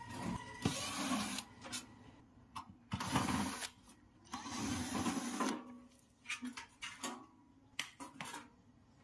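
Hand tools working on a refrigerator's compressor and its pipework during removal: three scraping, rattling bursts of about a second each, then a run of light metal clicks and taps.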